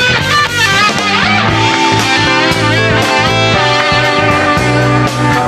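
Live rock band playing: electric guitar leading with bent, gliding notes over bass guitar and drums.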